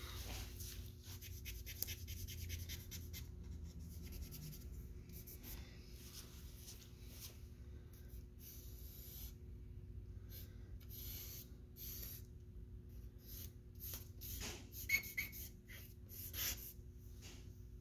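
Vine charcoal scratching and rubbing across drawing paper in runs of short, quick strokes with pauses between, over a faint steady hum.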